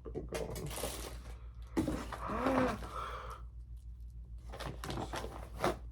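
Rustling and crinkling of packaging as items are handled and unwrapped, with a few small clicks and knocks. About two seconds in, a short pitched vocal sound rises and falls, over a steady low hum.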